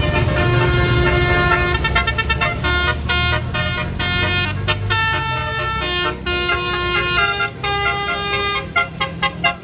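A bus's telolet basuri multi-note horn playing a fast tune of short stepped notes. The notes grow more clipped and separate partway through. A bus engine's low rumble lies underneath and eases off about halfway.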